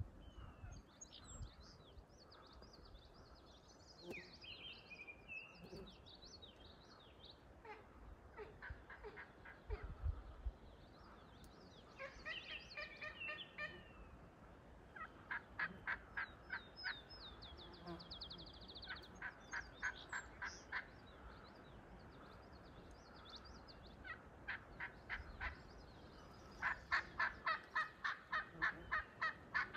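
Wild turkey calling in runs of rapid, evenly spaced yelping notes, about four or five a second, repeated several times. Songbirds chirp and trill faintly between the runs.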